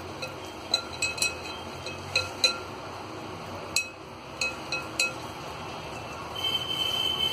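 A glass mixing bowl clinking with short, irregular ringing knocks, about a dozen of them, as a mutton chop is worked through a thick masala marinade inside it. About six and a half seconds in, a steady high whine with a hiss starts up and grows louder.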